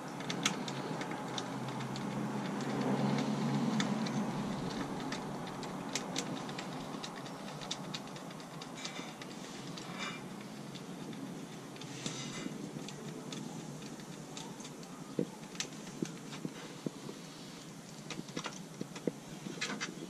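Irregular clicks and taps of hard plastic as a car's interior trim panel is handled and parts are fitted to it, over a steady background hiss.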